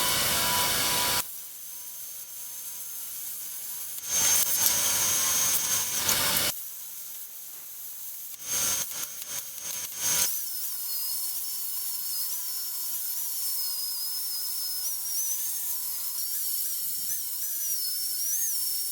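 Edited-together bursts of power-tool noise on steel, cutting in and out. From about halfway through comes a steadier stretch with a high whine that wavers slightly in pitch.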